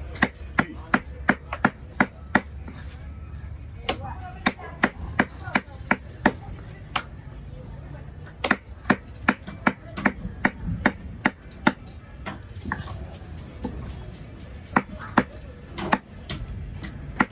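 Heavy cleaver chopping fish fillets into chunks on a wooden log block: sharp chops about three a second, in runs separated by pauses of one to two seconds.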